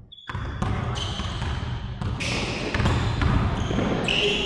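A basketball bouncing on an indoor court, many quick knocks in a large, echoing gym, with a brief high squeak near the end.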